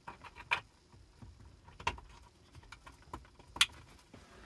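Scattered plastic clicks, knocks and rattles of wiring-harness plugs and cables being pushed into the dashboard cavity behind a car head unit, with a few sharper clicks about half a second, two seconds and three and a half seconds in.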